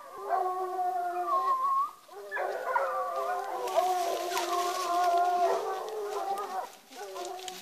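A pack of hunting hounds baying together in long, overlapping drawn-out cries, the chorus of hounds giving tongue on a scent. It breaks off briefly about two seconds in and dips again near the end.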